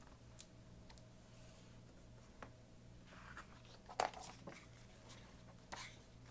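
Pages of a hardcover picture book being opened and turned: faint paper rustles and soft taps. The loudest comes about four seconds in, with another near the end, over a low steady hum.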